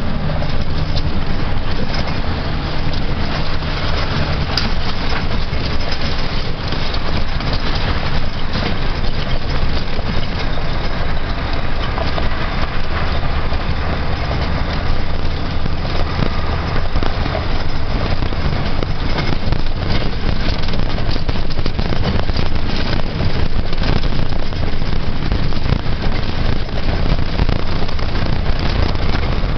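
A vehicle engine running steadily, heard from inside the cab on a rough gravel road, with tyre noise on the gravel and frequent knocks and rattles from the cab as it jolts over the surface.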